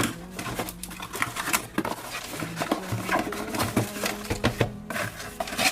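Product packaging being opened and handled: a quick irregular run of small clicks, taps and rustles, over quiet background music.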